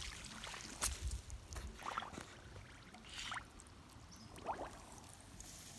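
Faint pond water sloshing and gurgling, with a few small, separate splashes.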